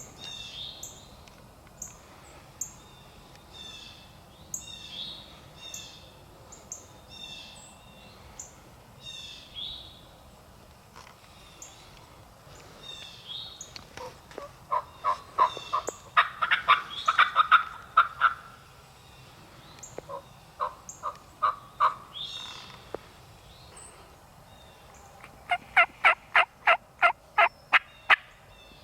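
Wild turkeys in a flock calling close by, with series of loud yelping notes. There is a dense, overlapping burst about halfway through, short runs a little later, and a steady string of about four notes a second near the end. Short high chirps come earlier on.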